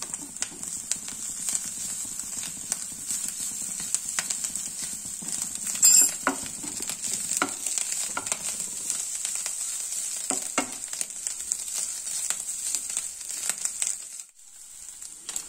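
Chopped onion, grated coconut and chillies sizzling in oil in a nonstick frying pan, stirred with a wooden spatula that scrapes and taps against the pan. There is one louder knock about six seconds in.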